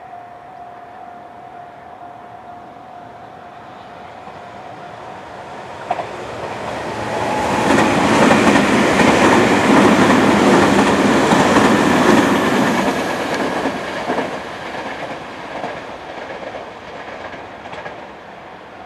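Electric train passing close by. It grows from a faint sound to a loud pass from about six seconds in, stays loud for several seconds, then fades away.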